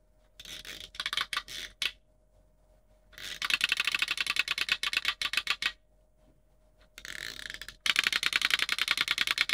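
A person chattering their teeth: rapid clicking of about ten clicks a second, in three runs, the longest in the middle.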